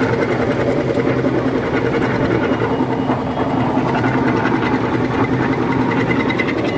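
Sicoma concrete mixer running with a steady mechanical drone and a fast, even rattle.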